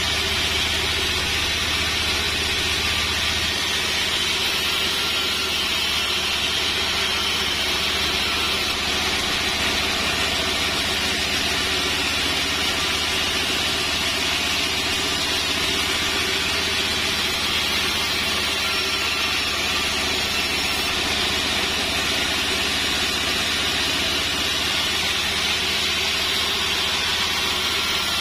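Sawmill band saw running steadily while ripping sengon wood into battens: a constant machine drone with the hiss of the blade cutting.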